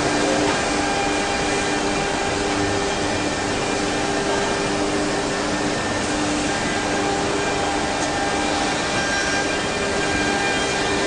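CNC wood router's spindle running and cutting grooves into a wooden board, a steady, even machine noise with a few faint steady tones on top.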